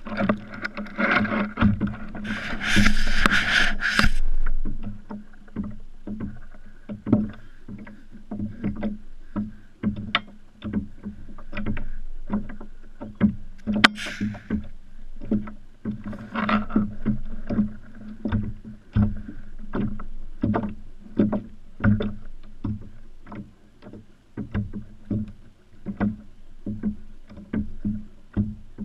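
Water slapping against a plastic kayak hull, with irregular knocks and bumps from handling on board. A louder rush of noise fills the first few seconds, and there are sharper single knocks about halfway through.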